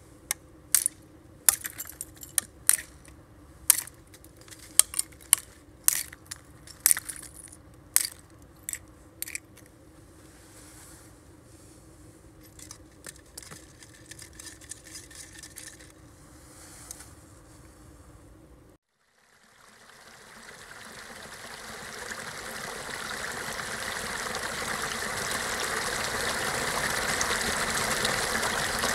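About a dozen sharp, separate clicks and clinks over the first ten seconds. After a brief dropout, a shallow creek runs over rocks, fading in and growing steadily louder.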